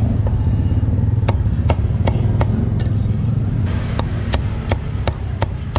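A heavy cleaver chopping meat on a thick wooden chopping block, about a dozen sharp chops at two or three a second with a short gap about three seconds in. A steady low engine rumble, likely from road traffic, runs underneath.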